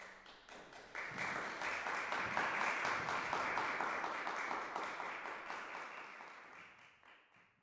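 Audience applauding: a few claps at first, swelling to full applause about a second in, then dying away near the end.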